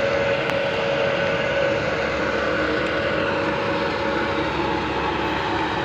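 A steady machine drone: a broad, even rush with a few faint held tones, unchanging throughout.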